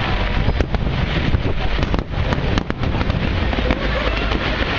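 Aerial fireworks going off in quick succession: a dense run of bangs and crackles over a constant rumbling wash.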